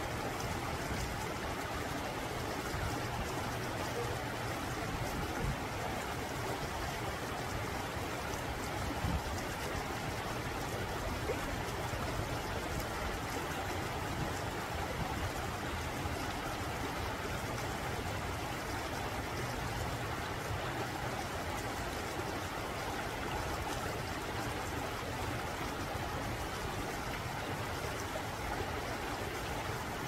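Rocky mountain stream flowing over and between boulders, a steady rush of water with small cascades trickling and gurgling.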